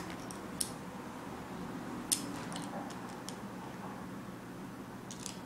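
Small plastic clicks and taps from Beyblade parts being handled and fitted together by hand, the sharpest click about two seconds in, over a steady low hum.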